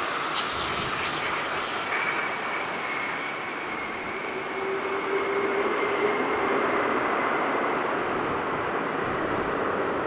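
Jet airliner landing, its engines giving a steady rushing noise with a high whine held from about two seconds in.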